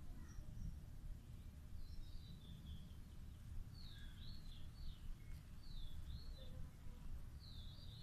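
Small birds chirping in the background, short high chirps repeating every second or so, over a steady low outdoor rumble.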